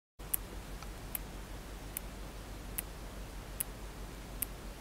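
Clicking of a mechanical replacement aortic heart valve, its metal parts shutting with each heartbeat: six sharp, regular clicks a little under a second apart, over a low steady rumble.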